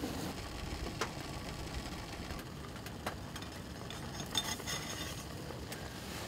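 Beef ramen soup bubbling in a metal pot on a wood stove, a steady low hiss, with a few light clicks and clinks of chopsticks against the pot and its lid, a small cluster of them after about four seconds.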